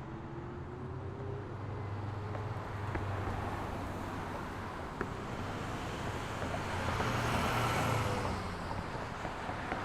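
Street traffic: a steady rumble of vehicle engines and tyres, with one vehicle passing close and swelling to its loudest about eight seconds in before fading. A single sharp click about five seconds in.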